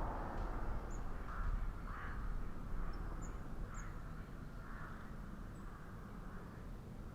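Crows cawing, a handful of short calls about a second apart, over a steady low rumble.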